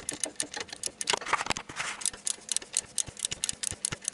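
Ratchet wrench with a 14 mm socket clicking in quick runs as it turns the alternator mounting bolt, running the bolt in without tightening it.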